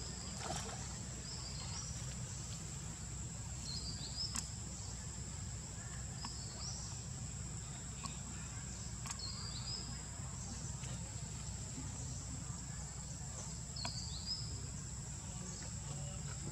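Outdoor insect chorus: a steady high-pitched insect drone, with a short high chirp repeating every two to three seconds and a steady low rumble underneath.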